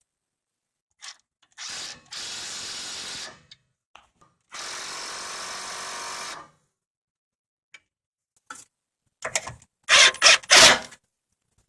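A power tool running the nut onto a new sway bar link in two steady spins, about 1.5 s and 2 s long. Near the end come several short, much louder bursts as the nut is tightened.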